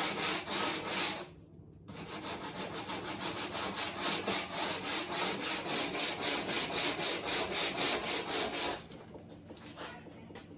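Sandpaper rubbed back and forth by hand along the edge of a wooden door, about four strokes a second. The strokes pause briefly about a second in, then run on evenly and stop near the end.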